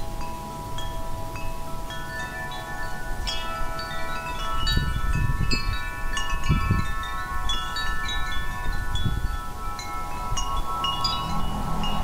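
Wind chimes ringing, with many overlapping strikes whose tones ring on for seconds. Low rumbling gusts of wind come and go through the middle.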